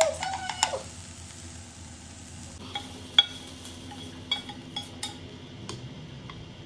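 Wooden chopsticks stirring bitter melon and egg in a frying pan, with a light sizzle. Partway through come a handful of separate sharp clicks as the chopsticks scrape the food out of the tilted pan into a bowl.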